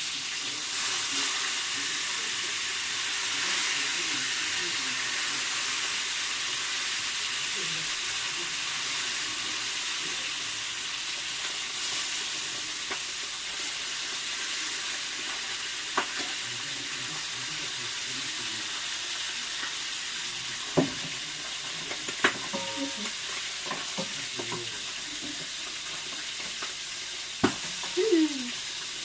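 Food frying in hot oil in a pan: a steady sizzle, a little louder in the first few seconds. In the second half a utensil knocks sharply against the pot a few times.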